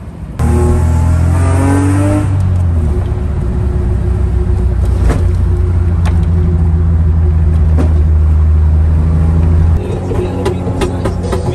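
BMW E36 compact with a swapped M52 straight-six and a freshly fitted exhaust pulling away, its engine note rising for about two seconds. Then a steady low engine drone from inside a moving car, which drops away abruptly near the end.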